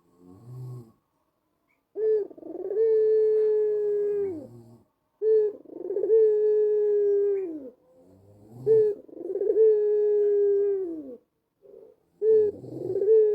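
White Barbary dove (ringneck dove) cooing: a repeated two-part coo, a short note followed by a long held note that drops in pitch at the end, about every three seconds.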